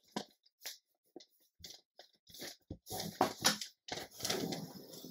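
Brown kraft paper bag crinkling and rustling as it is folded flat and creased with a bone folder: a few short crackles at first, then longer, denser rubbing rustles in the second half.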